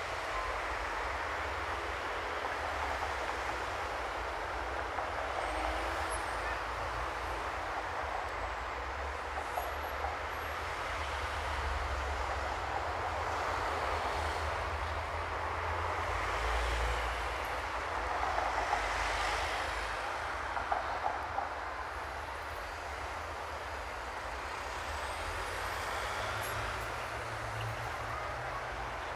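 Steady city traffic noise with a low rumble underneath, swelling for a while in the middle.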